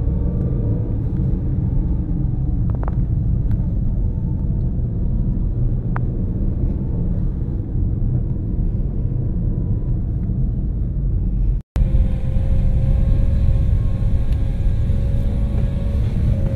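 Steady low rumble of a moving car's engine and tyres heard from inside the cabin, with a faint steady whine. The sound cuts out for an instant about twelve seconds in.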